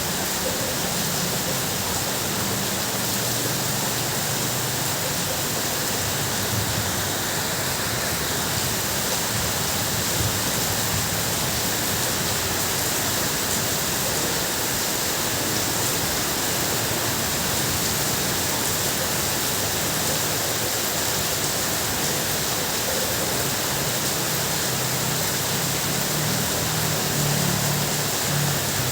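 Heavy rain drumming on a tin roof, a dense, steady hiss with no let-up. A low rumble swells underneath near the end.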